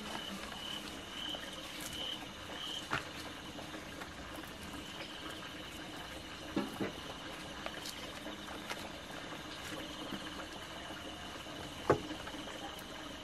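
Large leaves crinkling and rustling as sticky rice is folded and wrapped in them by hand, with a few light taps and one sharper knock near the end as a wrapped cake is set down. A steady pulsing insect trill sits underneath.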